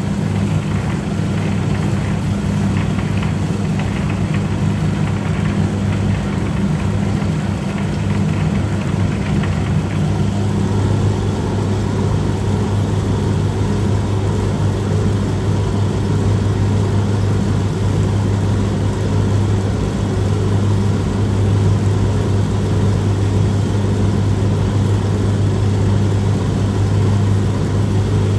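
Electric noodle-cutting machine running steadily, with a constant low motor hum.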